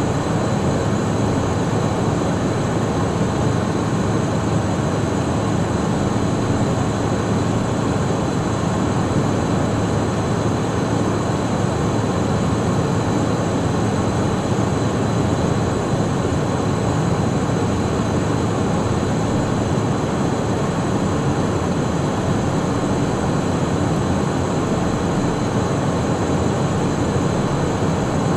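Steady in-flight cockpit noise of a Cessna Citation Mustang, a light jet with two Pratt & Whitney Canada PW615F turbofans: an even rush with faint high whines held constant throughout.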